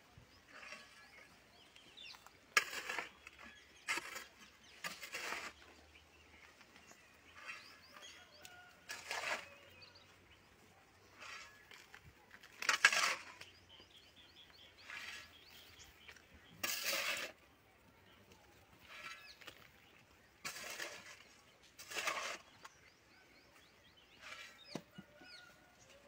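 Small hand tool chopping and scraping into the packed soil of a grave pit. About a dozen short separate strokes come at irregular intervals of one to a few seconds.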